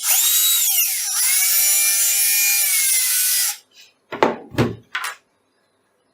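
Small electric drill with a micro drill bit running for about three and a half seconds as it bores a small hole in soft plastic. Its whine dips in pitch about a second in, then holds steady and cuts off. A few short knocks follow near the end.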